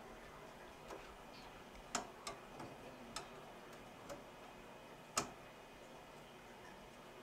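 Scattered small clicks and taps from film negatives and enlarger parts being handled, irregularly spaced, the sharpest about five seconds in, over a faint room hiss.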